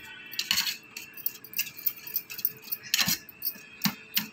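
Steel spoon clinking and scraping against a stainless steel bowl as curd is beaten smooth: quick, irregular clicks with a few louder knocks.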